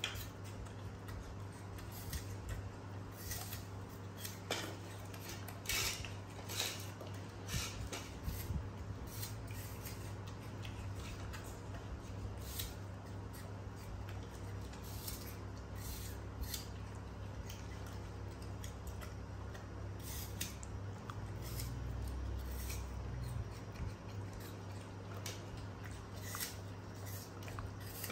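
Young macaques eating apple slices: irregular crisp crunches and small clicks as they bite into the apple and pick pieces off their plates, over a steady low hum.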